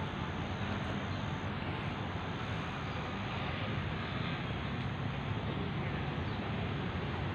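Steady outdoor background noise, an even rushing sound with a low rumble and no distinct events.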